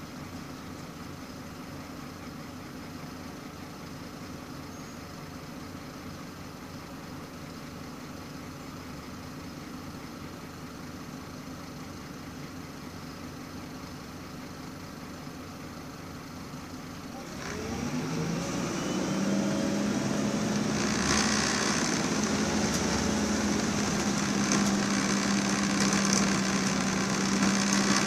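MAN 18.240 Enviro 300 bus's six-cylinder diesel engine idling steadily, heard from inside the saloon; about two-thirds of the way through the bus pulls away, the engine note rising in pitch and then running louder and steady under load.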